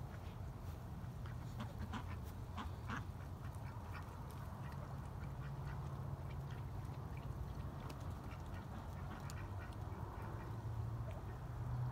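Ducks quacking in short, scattered calls over a steady low hum.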